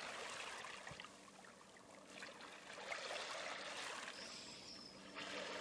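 Faint, steady sound of flowing water, a stream trickling and running.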